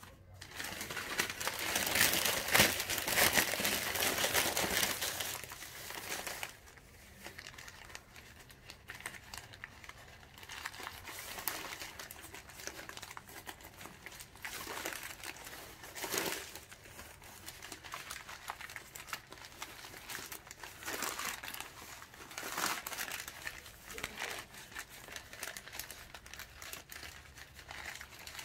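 Newspaper being crumpled and handled, loudest for the first six seconds, then quieter on-and-off rustling.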